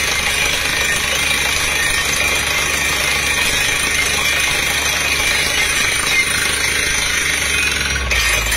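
Truck-mounted DTH water well drilling rig drilling: a steady mechanical din from the down-the-hole air hammer and the compressed air blowing cuttings out of the hole, over a constant low engine hum. The sound changes abruptly near the end.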